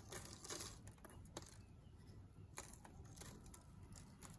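Near silence with a few faint, scattered ticks: grains of coarse Guérande sea salt being sprinkled by hand onto fish on parchment paper.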